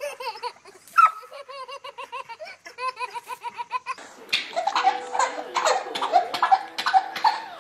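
A toddler giggling in quick, evenly repeated 'ha-ha-ha' bursts. About four seconds in it changes to an infant's breathy belly laughter in rapid, uneven bursts.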